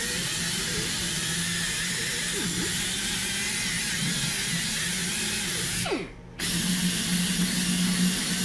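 Handheld power tool spinning a cleaning wheel, scrubbing old gasket and sealant off the engine's intake mating surface. It runs steadily, cuts off about six seconds in with its pitch falling as it spins down, then starts again.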